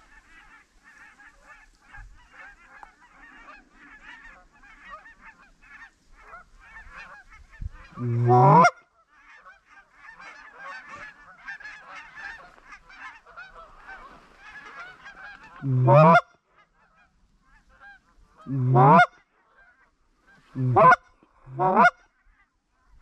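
A flock of geese calling steadily in the background, with five much louder honks, each rising in pitch: one about eight seconds in, one near the middle, and three close together near the end.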